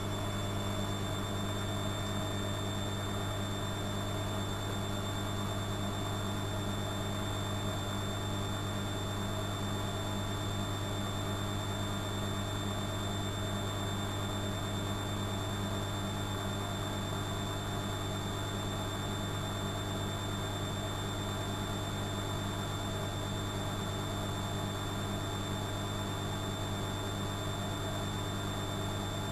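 Studio WM26AAA washing machine running with a steady, unchanging hum and a faint high whine.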